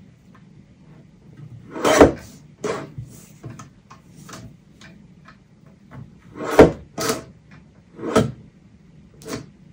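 Lever-arm paper cutter trimming card: about six sharp clacks and swishes of the blade arm, the loudest about two seconds in and again about six and a half seconds in.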